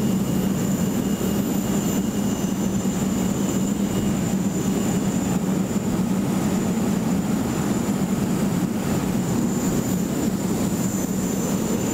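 Steady drone of ramp machinery around a parked Airbus A380: a low hum under a wash of noise, with a thin high whine above it.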